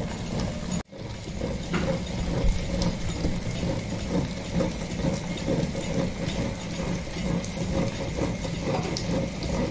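Electric wet grinder running: its stone roller turns in the steel drum and grinds thick red chilli pickle paste with a steady, rhythmic churning. The sound breaks off for a moment under a second in.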